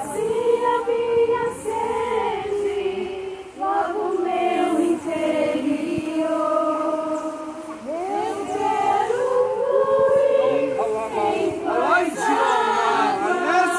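A group of voices singing a worship song together, women's voices prominent, with long held notes that slide from one pitch to the next.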